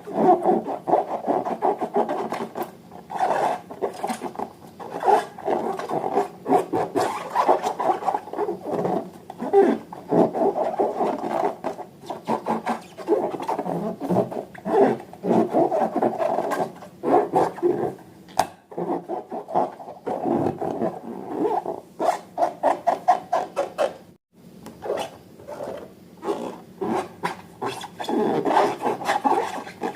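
Slime and balloons being handled by hand: an uneven run of rubbing, squishing and crackling sounds with many small clicks, pausing briefly twice.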